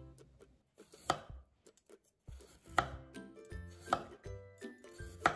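A kitchen knife chopping vegetables on a wooden cutting board: four separate, unhurried cuts spaced a little over a second apart.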